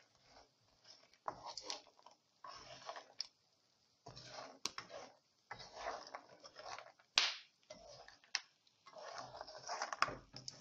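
Wooden spoon stirring almonds through sandy, crystallised sugar in a non-stick pan: irregular scraping and rattling in short stretches, with a few sharp clicks.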